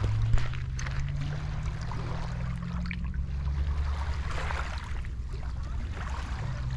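Small waves lapping at a pebble shoreline, with scattered small clicks of water and stones, under a low steady drone.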